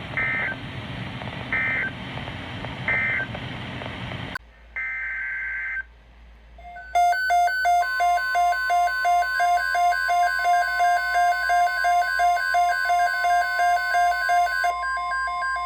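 Emergency Alert System data tones: three short end-of-message bursts over radio static, then after a cut a single header burst. A pulsing electronic alarm follows, beeping about two to three times a second, and about a second later the steady 1050 Hz NOAA Weather Radio warning tone joins it.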